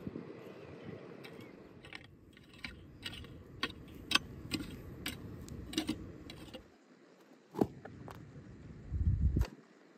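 Metal garden tools, a shovel and an iron rake, scraping through stony soil with irregular sharp clinks and scrapes as earth is dug and raked. A short low rumble comes about nine seconds in.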